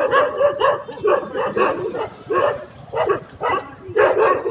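Dogs barking in a string of short, high yelps, two to three a second with brief pauses.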